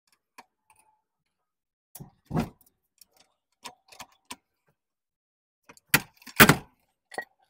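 Separate knocks and small metallic clicks as a rubber engine mount is worked up onto its studs against the subframe. The loudest is a knock about two seconds in and a pair of knocks near the end.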